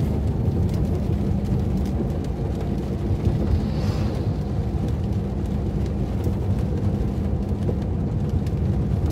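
Steady low rumble of a car driving in the rain, heard from inside the cabin: engine and tyres on a wet road.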